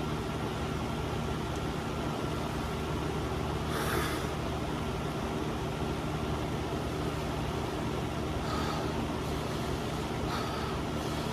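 A steady low mechanical hum runs throughout. Three brief hissing noises cut through it, about four seconds in, near eight and a half seconds, and just past ten seconds.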